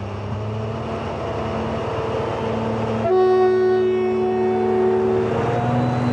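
Railway locomotive sounding one long, steady whistle of about two seconds, starting about halfway through, over the steady low running noise of the train.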